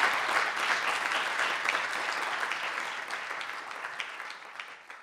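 Audience applauding, a dense patter of many hands clapping that gradually fades away toward the end.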